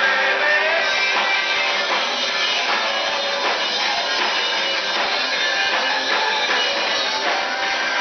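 Live rock band playing loud and close: electric guitar, bass guitar and drums. The recording has almost no low end.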